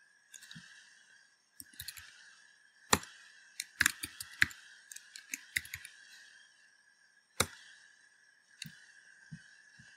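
Computer keyboard being typed on: irregular key clicks in short runs, with a few louder strikes, over a faint steady high whine.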